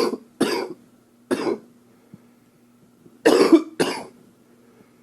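A man coughing from an upper respiratory infection: three short coughs in quick succession, then after a pause of about two seconds two more, louder coughs close together.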